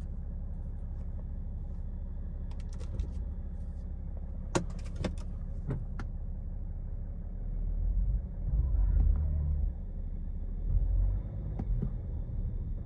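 BMW 435d's straight-six diesel idling, with a few clicks. From about seven and a half seconds in, louder low rumbling surges come as the car moves off: a front tyre rubbing against the shock absorber behind a caved-in, crash-damaged wheel.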